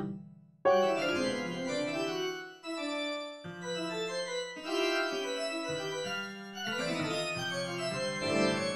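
Organ playing dense, atonal chords that shift every second or so. The sound fades out at the start, then a loud new chord comes in sharply just under a second in.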